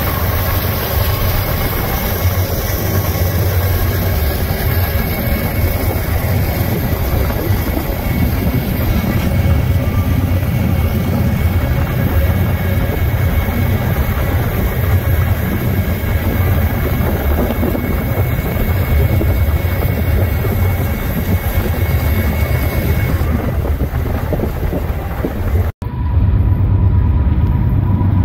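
Freight train led by BNSF diesel locomotives passing close by: a loud, steady rumble of engines and rolling wheels. Near the end the sound cuts out for an instant and resumes with a similar rumble and a steady high tone.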